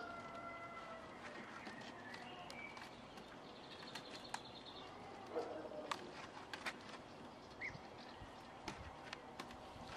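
Birds singing and calling in the background, with a few short whistles and a trill, over scattered faint clicks and rustles from gloved hands working wire ties on reed matting.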